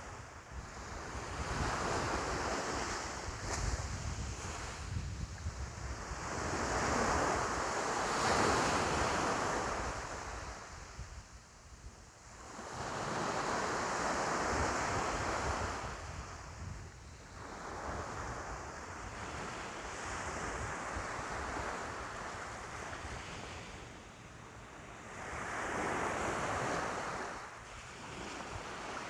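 Ocean waves breaking and washing in, rising and falling in slow surges about every five to six seconds, over a low rumble of wind on the microphone.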